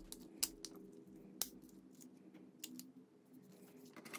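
A few faint clicks and taps from the plastic housing of an Oppo F5 phone as it is pressed and snapped together in the hands.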